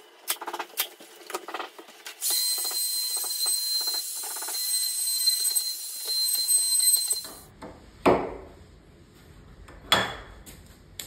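A cordless nailer fires a quick series of brads. Then a compact trim router runs with a steady high whine for about five seconds, cutting a hinge mortise in the door edge through the jig, and cuts off. Two sharp knocks follow, a couple of seconds apart.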